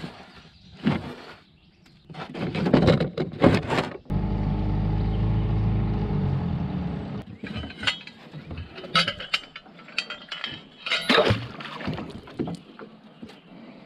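Knocking and clinking of fishing gear being handled in a boat. About four seconds in, a Mercury outboard motor starts suddenly, runs steadily for about three seconds and dies away, and then the clattering goes on.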